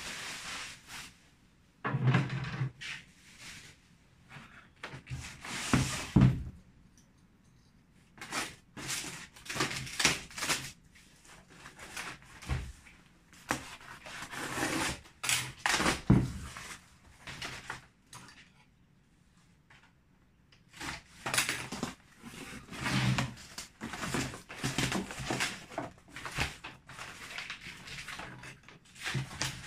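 A box being unpacked and parts handled: irregular rustling and scraping with occasional knocks and clunks, in uneven bursts separated by short pauses.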